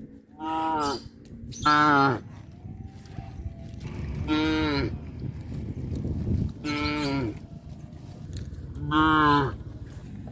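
Cows mooing, five short calls about two seconds apart, each about half a second long.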